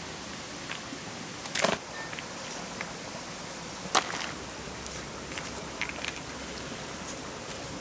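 Walnuts being gathered from the grass and dropped into a wicker basket: a few scattered knocks and clicks, the loudest about a second and a half in and again at four seconds, over a steady outdoor hiss.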